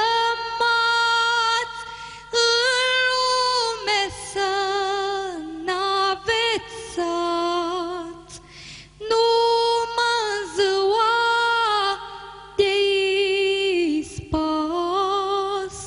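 A woman singing a Romanian Christmas carol (colindă) in Maramureș folk style, solo and unaccompanied, with long held notes and vibrato and a brief breath pause about eight seconds in.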